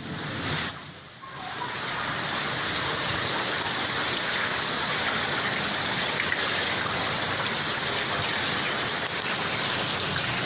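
Heavy rain falling as a steady, even hiss. It swells briefly, dips, and settles louder about a second in.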